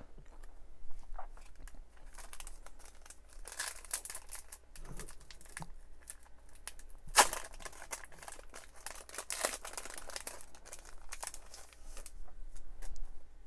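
Trading card pack's shiny wrapper crinkling and being torn open by hand, with crackling throughout and one sharp, louder rip about seven seconds in.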